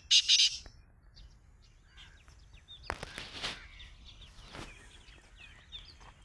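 A black francolin (kala titar) gives a harsh, grating call that ends about half a second in. Faint chirping of small birds follows, with two short rustling noises in the middle.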